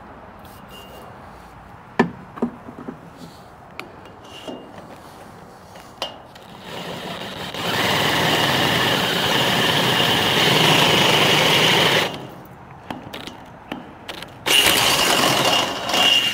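Cordless drill drilling into the steel frame of a trailer gate, in two runs: a longer one that builds up about seven seconds in and runs for about five seconds, then a shorter burst near the end. A few light clicks and knocks of handling come before it.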